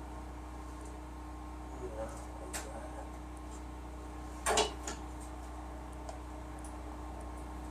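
A few metal clicks and clinks of hand tools and the hood latch being refitted, with a louder short clatter about four and a half seconds in, over a steady low hum.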